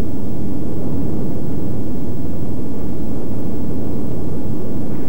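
Steady low rumbling roar of a basalt lava fountain erupting on Heimaey, the gas-driven fountain throwing up molten lava and ash.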